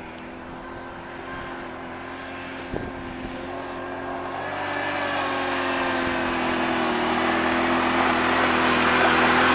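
Engine of a Can-Am 500 off-road machine approaching up a dirt trail, running steadily and growing louder as it comes closer, with a small knock about three seconds in.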